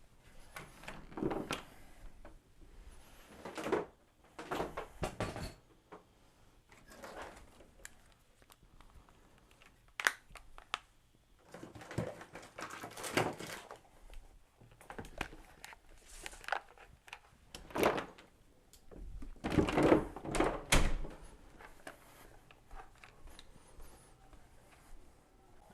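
Irregular clunks, knocks and scraping: hands handling parts and the sheet-metal case of a microwave oven opened up for repair. The heaviest knocks come in clusters about 4 seconds in, around 13 seconds and around 20 seconds.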